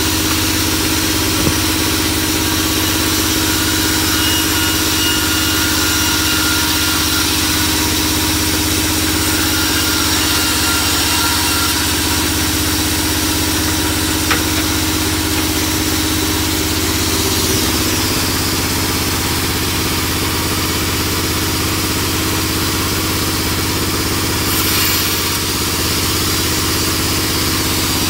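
Vertical band sawmill running steadily with no board in the cut, a continuous machine hum that steps slightly in pitch about 17 seconds in. A brief hiss comes near the end.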